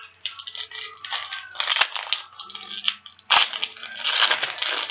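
Foil wrapper of a baseball card pack being torn open and crinkled in the hands, a run of crackling rustles that grows louder in the second half.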